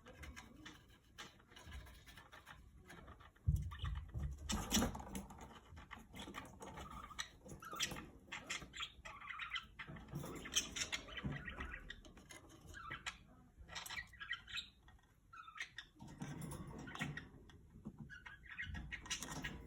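Pet parrot making soft, scattered chirps and chatter, with small clicks and scratchy rustling. There are low bumps a few seconds in and again near the end.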